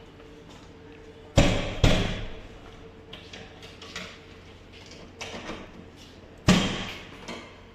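Tools striking a locked door's lock while it is forced open: two hard knocks in quick succession, then one more about five seconds later, with lighter taps and clicks in between.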